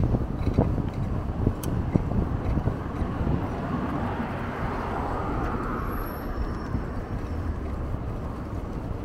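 Low wind and road rumble on a cycling camera's microphone, with a few knocks in the first two seconds. A passing vehicle swells and fades about four to six seconds in.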